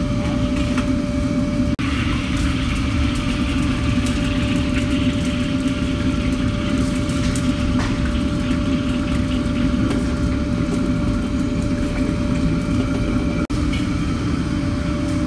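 Commercial wok range running: a steady low roar from the gas burner and its blower fan, with a constant hum. Hot oil sizzles underneath as diced food fries in the wok.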